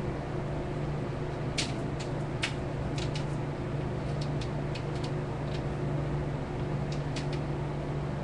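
Light, irregular clicks and ticks from fishing rods and their reels being handled, over a steady low hum.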